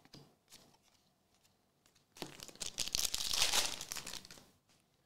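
Crinkly, tearing rustle of a foil trading-card pack wrapper being handled, lasting about two seconds and starting around two seconds in, after a few light ticks of cards being flicked.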